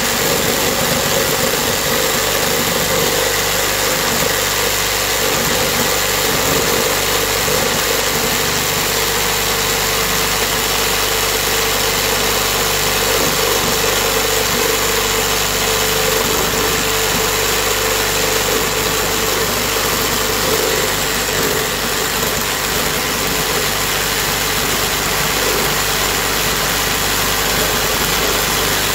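Kobalt 6-amp one-handed orbital reciprocating saw running steadily in full orbit mode, its blade sawing into a thick, dry glulam beam.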